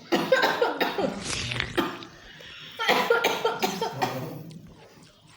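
A woman coughing hard in two bouts, one at the start and one about three seconds in, brought on by the chili heat of a very spicy rujak.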